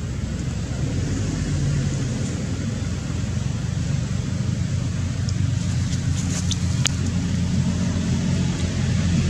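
Low, steady rumble of road traffic or a vehicle engine that slowly grows louder, with a few faint high clicks near the middle.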